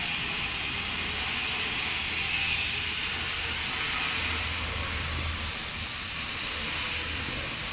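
Continuous UV food sterilizer conveyor machine running: a steady hiss with a low hum underneath.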